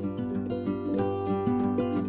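Instrumental background music: a quick run of plucked notes picking out a melody over a held lower part.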